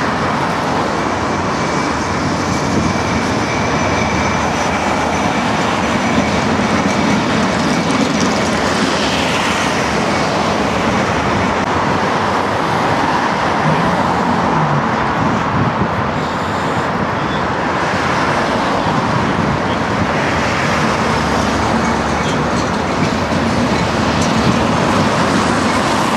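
City street traffic with trams running along the rails: a steady mix of road-vehicle and tram running noise. A thin high whine sounds over the first few seconds.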